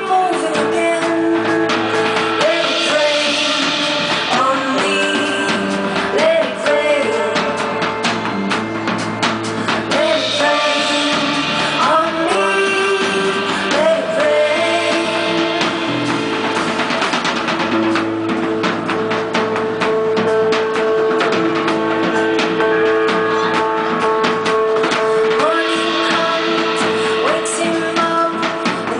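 A woman singing live with a band, holding long notes over a drum kit and other instruments.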